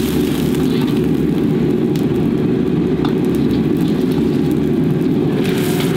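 Commercial gas wok burner running at full flame under a wok of boiling water, a steady low rumble, with the water bubbling and a ladle stirring. A brighter hiss rises near the end.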